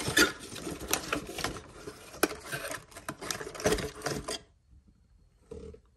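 White cardboard product box being handled and opened, its inner tray sliding out of the sleeve: rapid scraping and rustling with quick taps and clicks of card. It stops about four and a half seconds in.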